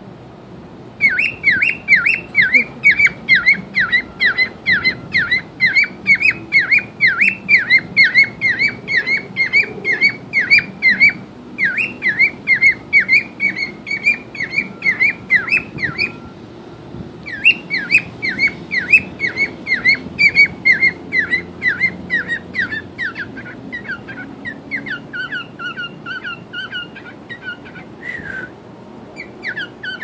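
Grey cockatiel calling in fast runs of rising-and-falling chirps, about three a second, with a short break about halfway. Near the end the notes turn softer and quicker.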